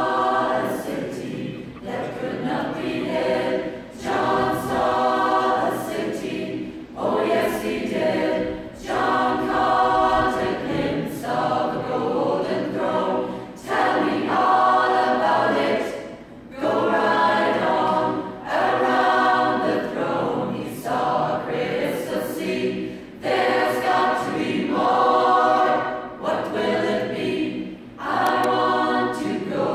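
A cappella choir singing, with no instruments, in phrases of about two seconds separated by brief breaks.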